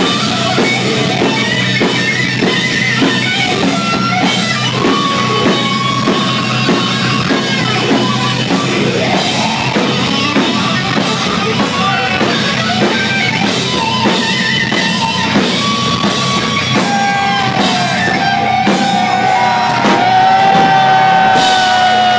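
Live heavy metal band playing loud: distorted electric guitar and drum kit pounding on, with long held notes near the end.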